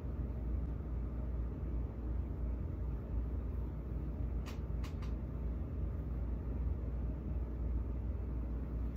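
Air conditioner running with a steady low hum, with two faint clicks about four and a half and five seconds in.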